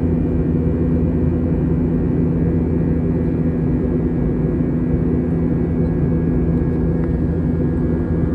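Steady drone of an Airbus A321's IAE V2500 turbofan engines heard from inside the cabin: a low, even hum with two steady tones over rushing air noise, with no change in pitch or level.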